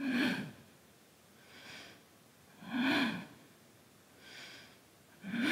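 A woman breathing audibly in time with a slow repeated movement: three strong exhales about two and a half seconds apart, with softer inhales between them.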